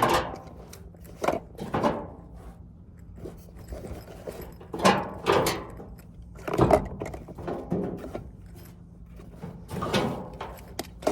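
Hand tools being put into a fabric tool bag one after another, making a series of about eight knocks and clunks at uneven intervals.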